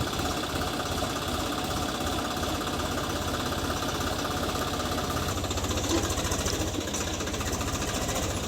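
Diesel engine of a backhoe loader at work, running steadily with a fast, even clatter; its note changes slightly about five seconds in.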